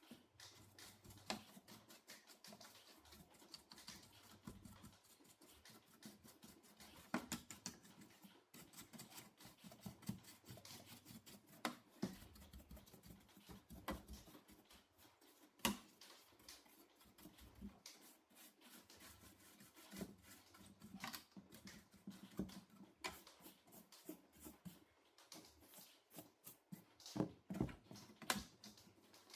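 Faint, irregular clicks and scratching from hand work on a television set, with a few louder clicks among them.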